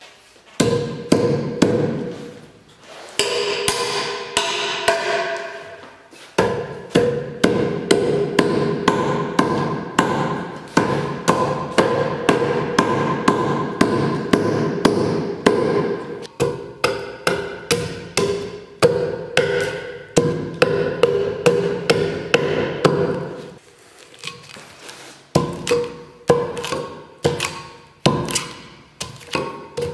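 Hand-forged mortise axe chopping into a small green log, a rapid series of sharp wooden chops, over background music.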